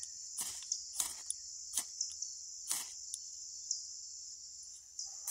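A half-inch Bayite ferrocerium rod scraped hard with its striker to throw sparks, about five quick rasping strikes roughly a second apart, over a steady high-pitched insect drone.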